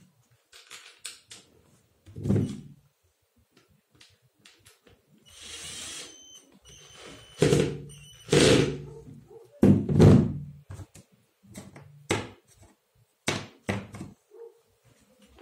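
Parts of a stand fan being handled and fitted together as the pole is set onto the base's mounting plate: a string of irregular knocks and thuds, with a rubbing scrape about five seconds in and a few brief light metallic rings.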